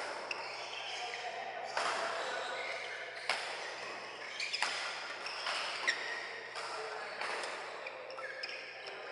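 Badminton rally: rackets striking the shuttlecock in a steady exchange, about six sharp hits, each a second or so apart, with brief squeaks of court shoes between them.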